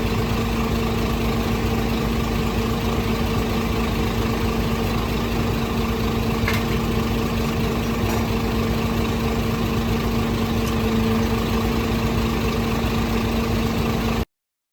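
Isuzu Forward truck's diesel engine idling steadily with an even hum, then cutting off abruptly near the end.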